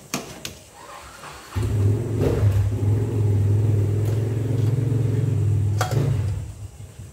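Wire mesh skimmer clinking against a steel pot and colander as boiled dumplings are lifted out. About a second and a half in, a loud, steady low drone starts, runs for about five seconds, then fades near the end.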